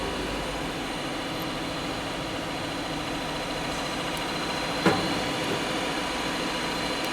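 Steady background hum and hiss, like a fan or machine running in the room, with one sharp click about five seconds in.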